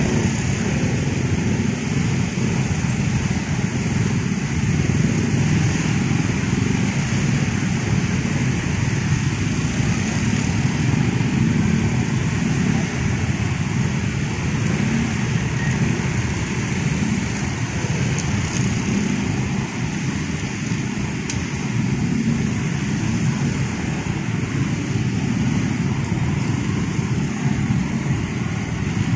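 Dense traffic of many small motorcycle and scooter engines running as they stream past in a steady, continuous mass.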